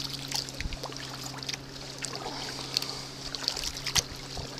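Kayak paddle blades dipping into lake water, with irregular splashes and drips, over a steady low hum.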